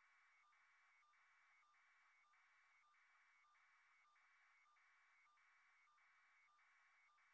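Near silence, with a very faint electronic buzz that pulses on and off a few times a second.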